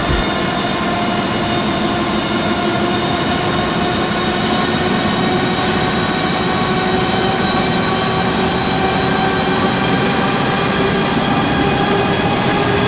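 Web offset printing press running: a steady mechanical drone with a whine of several tones that rises slowly in pitch.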